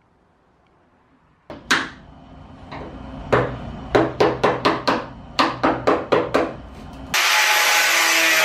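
About a dozen sharp metallic taps, roughly three a second, as a hand tool is worked against a welded-in steel strip in a car door. About seven seconds in, an angle grinder cuts into the steel with a loud, steady grinding hiss and whine.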